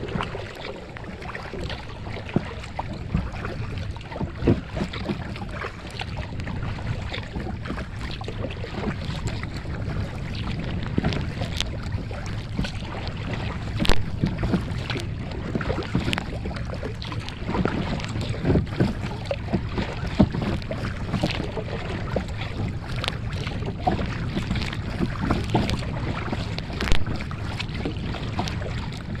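Kayak paddle strokes splashing and water lapping against the hull, with irregular sharp splashes throughout. Wind buffets the microphone as a steady rumble underneath.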